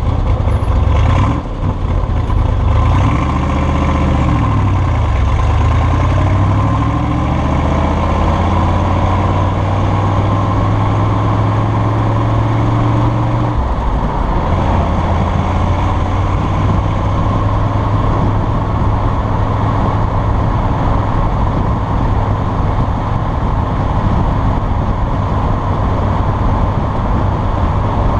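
1965 Chevrolet Corvette Sting Ray's V8 engine running while the car is driven, a steady low engine note. Its pitch falls and climbs again a few seconds in, and breaks off briefly about halfway through before settling steady once more.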